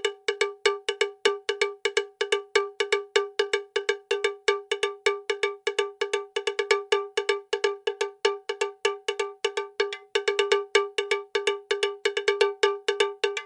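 A struck metallic percussion sound with one clear ringing pitch, like a cowbell, hit rapidly over and over at about six strokes a second in a slightly uneven pattern.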